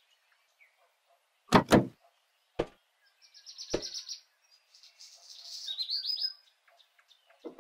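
Someone climbing up into a Peterbilt semi-truck cab: a pair of heavy thumps about one and a half seconds in, then two single knocks, from the cab door and boots on the metal step. Small birds chirp and trill in between.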